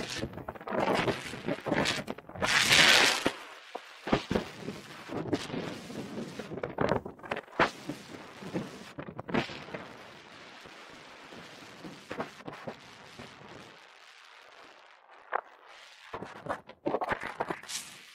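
Skis scraping and hissing over packed snow on a downhill run, with irregular knocks and rustles. The loudest hiss comes about three seconds in, and there is a quieter glide through the middle.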